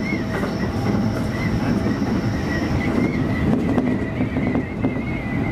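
Electric commuter train running on the track, heard from inside the front car behind the driver's cab: a steady rumble of wheels on rail with a thin high whine that wavers in pitch, and scattered light clicks.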